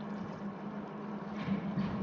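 A steady low hum over a wash of noise, with two soft knocks about a second and a half in.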